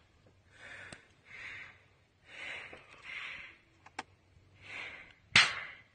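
A person breathing audibly, about five soft breaths a second or so apart, with a few faint clicks and a sharper, louder click near the end.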